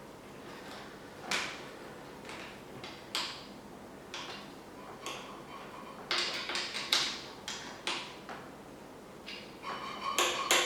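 Tools and bike parts being handled on a workbench: scattered light clicks and knocks, with a quicker patch of clatter about six seconds in.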